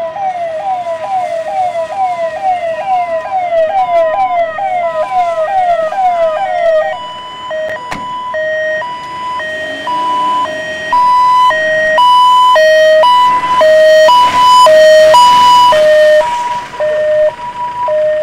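Ambulance siren: a fast repeating falling wail, two or three sweeps a second, which switches about seven seconds in to a hi-lo two-tone pattern and grows louder as it comes close.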